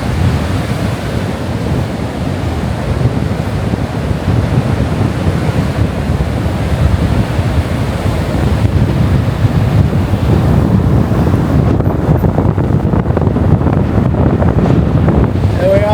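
Strong wind blasting across the microphone in a heavy, low rumble, with Atlantic surf breaking under it.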